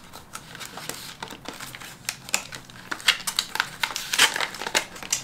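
Clear plastic envelopes rustling and clicking as fingers flip through a row of them standing in a plastic basket: a quick, irregular run of crinkles and light clacks.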